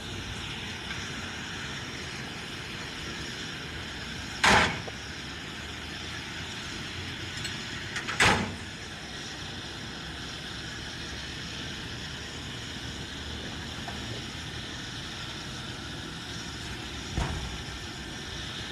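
Steady machine noise, broken by two loud sharp knocks about four seconds apart and a fainter knock near the end.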